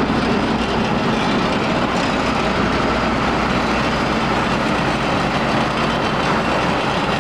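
John Deere 9600 combine running steadily while harvesting: its diesel engine and threshing machinery make a constant loud mechanical noise with a low hum underneath.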